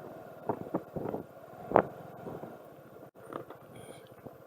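Vehicle engine running at low speed, heard from inside the vehicle while it moves slowly. A few short, sharp sounds come in the first two seconds, the loudest just under two seconds in.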